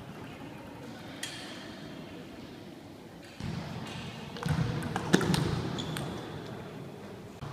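Table tennis ball clicking off rubber paddles and the table during a rally: one click about a second in, then a quick run of clicks in the second half.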